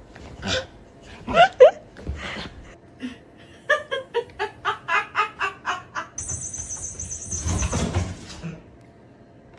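A burst of laughter: a quick, even run of ha-ha pulses, about four or five a second, falling slightly in pitch, after a few short rising and falling cries. A high steady tone sounds for about two seconds near the end.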